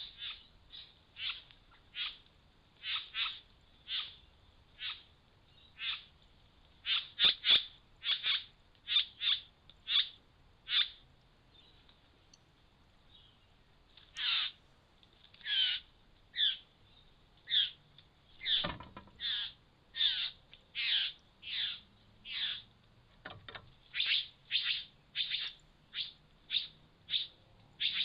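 Satin bowerbird calling over and over at its bower: short notes that slide down in pitch, about one a second, with a pause of a few seconds near the middle.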